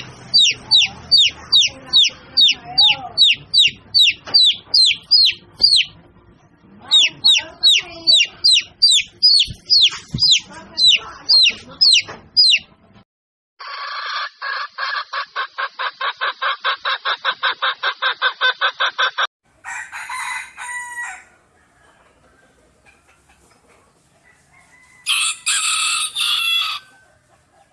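A series of separate animal calls. For about twelve seconds there are rapid high peeps, each sweeping downward, about four a second. Then a fast buzzy trill runs for about six seconds, then a short call, and near the end a loud crow like a rooster's.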